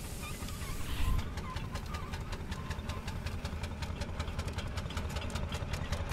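Miniature steam traction engine working under load against a winch cable, its exhaust beating in rapid, even chuffs. A thump about a second in, just before the chuffing begins.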